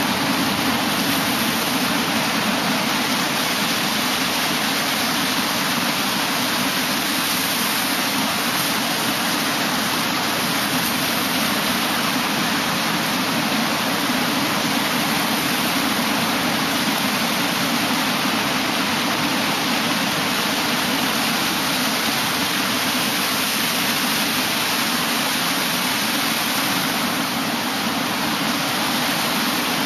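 Ocean surf breaking and washing in, heard as a steady, even rush of noise.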